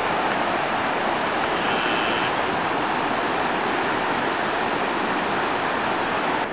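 Flash-flood water rushing across a flooded paved road, a steady, unbroken rush of noise.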